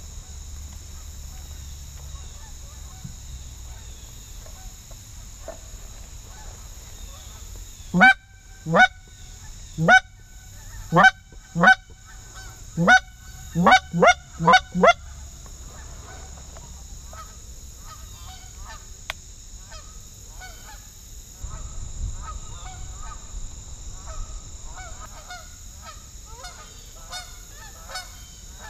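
Goose honking: a quick run of about ten loud honks, each breaking sharply upward in pitch, followed by fainter, more distant honking that carries on over the rest of the stretch.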